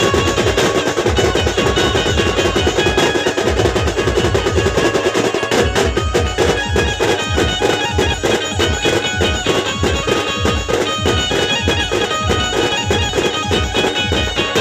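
Dhumal band playing loud live music: drums beating a steady, driving rhythm under a sustained melody line.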